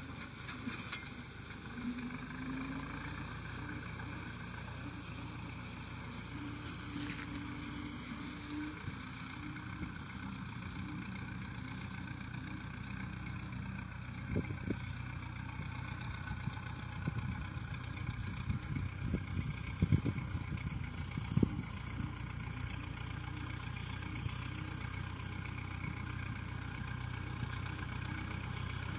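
Farm tractor engine running steadily, with a few short thumps about halfway through.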